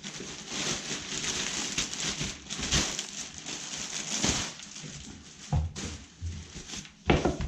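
Plastic parts and packaging rustling and crackling as they are handled, with a few small clicks.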